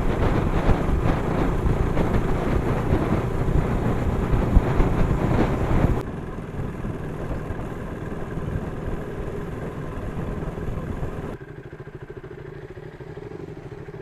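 Motorcycle engine running, loud and rough for the first six seconds, then cutting abruptly to a quieter engine sound, and again a little after eleven seconds to a lower, steady hum.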